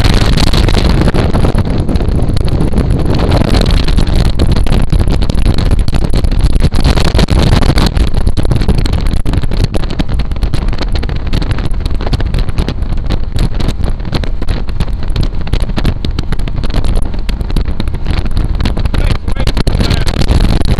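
A Hallett 270 boat's 500 hp engine running steadily at speed on a 26-pitch propeller, loud and constant, with wind buffeting the microphone.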